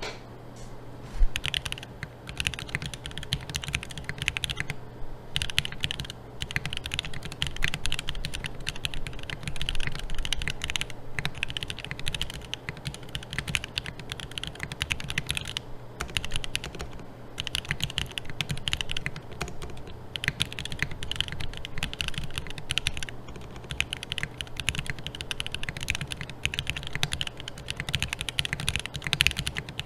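Custom mechanical keyboard (Finn Prototype #1) being typed on: fast runs of key clicks with brief pauses. A steady low hum runs underneath.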